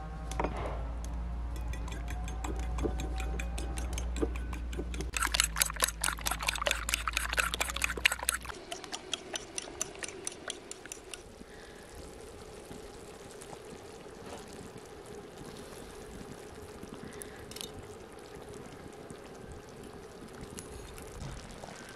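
Fork beating eggs in a small bowl, a rapid clicking clatter that grows loud about five seconds in and stops after about three seconds. Then a quieter, steady sound of tomato sauce cooking in a pan over a wood fire, with the beaten eggs poured into the pan near the end.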